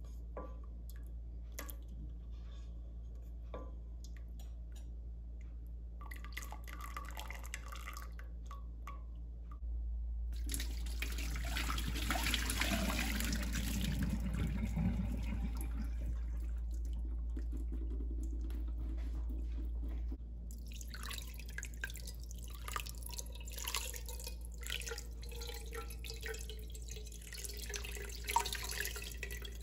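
A spatula stirring boiled tapioca pearls in a steel pot, with light taps against the pot. Then the hot water is poured out through a fine mesh strainer into a steel sink, rushing for several seconds, followed by water trickling and dripping from the drained pearls. A steady low hum runs underneath.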